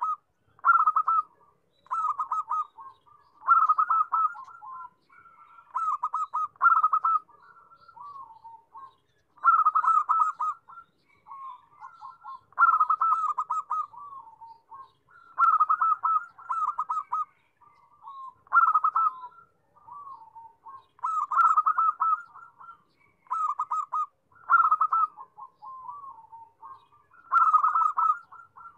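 Zebra dove (perkutut) cooing: repeated phrases of rapid, rolling staccato coos, a new phrase every second or two.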